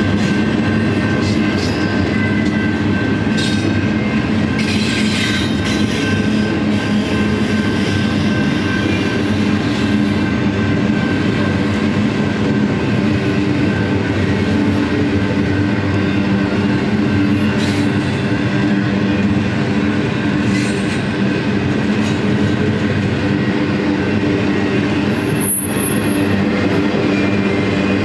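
Double-stack intermodal well cars rolling past on the rail, a steady loud rumble of wheels on track. A brief high squeal comes near the end.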